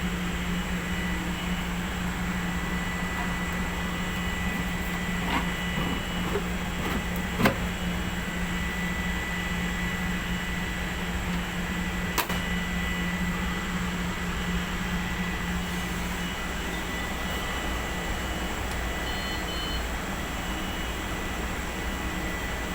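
Humidifier running with a steady hum and a thin high whine over a hiss, with two sharp clicks, one about a third of the way in and one just past halfway.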